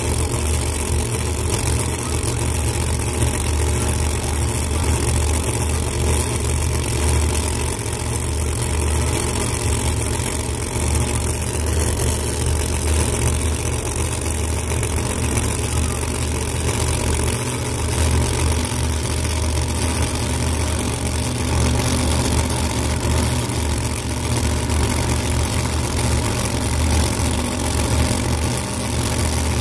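Two supercharged Pro Mod drag cars idling side by side: a steady, loud, low idle with no revving.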